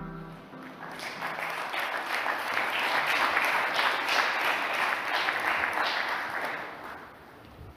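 Audience applauding: the clapping swells about a second in and dies away near the end.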